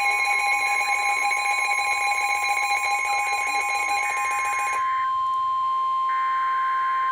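NOAA Weather Radio warning alarm: a steady single-pitch attention tone of about 1 kHz, announcing a new severe thunderstorm warning. A second, harsher multi-tone alarm sounds over it and stops about five seconds in, and two short buzzing data bursts come near the end.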